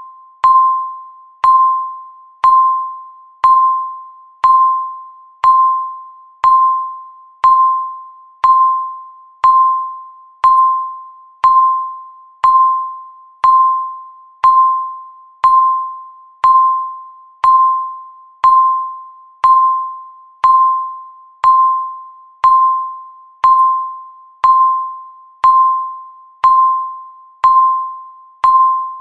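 Countdown timer beep sounding once a second: a short, bright electronic ping of one steady pitch that strikes sharply and fades before the next.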